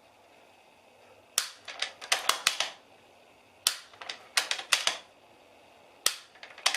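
Rifle and homemade clamp being shifted and adjusted on a tripod head: three clusters of sharp clicks and rattles, a couple of seconds apart.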